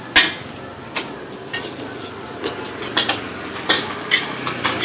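Utensils clinking against dishes in short, sharp clicks, about one every half second, over steady background noise.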